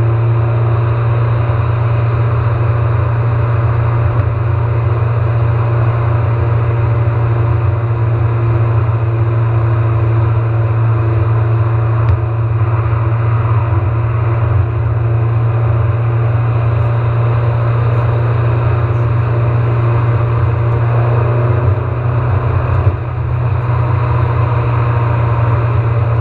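Steady road and engine noise of a car at freeway speed, heard inside the cabin: a strong low drone with tyre hiss, dipping briefly about 22 seconds in.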